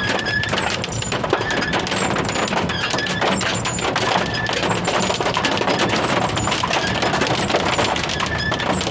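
Steady rain and road noise from a vehicle driving in the rain, with short high chirps recurring every second or so.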